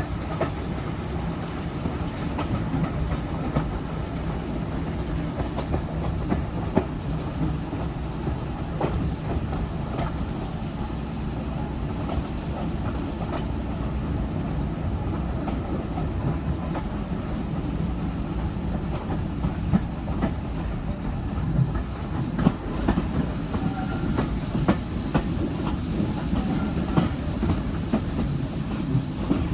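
Stanier Black 5 steam locomotive hauling a passenger train, heard from a carriage window: a steady low rumble of the running train with carriage wheels clicking over rail joints. A hiss grows louder about three-quarters of the way through.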